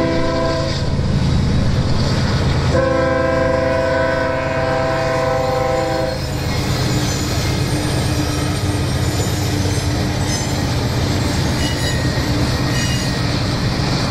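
A diesel freight locomotive's multi-note air horn blows a brief blast, then a long blast of about three seconds starting near the three-second mark, while the lead locomotives' diesel engines drone steadily. After the horn stops, the engines and the double-stack container cars roll past on steel wheels.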